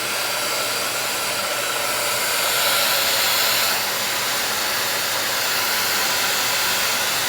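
An 1800-watt ionic hair dryer fitted with a concentrator nozzle, blowing steadily on its low setting. The airflow rush gets slightly louder and brighter for about a second in the middle.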